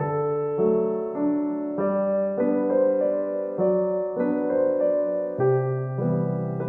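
Background piano music, gentle notes and chords changing about every second.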